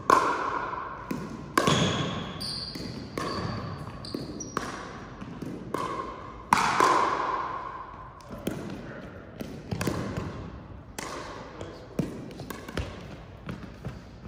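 Pickleball rally: sharp pops of paddles striking the plastic ball, roughly one every one to one and a half seconds, each echoing in a large hall, with a few short sneaker squeaks on the court floor a few seconds in.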